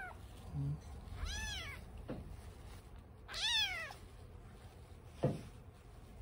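A 20-day-old black kitten meowing twice, each a high cry that rises and then falls, the second louder and longer. A short sharp knock about five seconds in, over low handling rustle.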